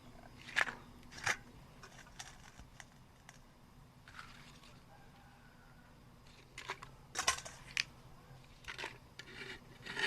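Sparse light clicks and knocks, about a dozen, scattered through a quiet stretch over a faint steady low hum, with a short soft hiss about four seconds in.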